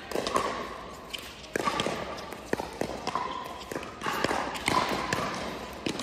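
Pickleball rally: paddles sharply striking the hard plastic ball in a quick back-and-forth exchange, about half a dozen hits with ball bounces among them, each echoing in the indoor hall.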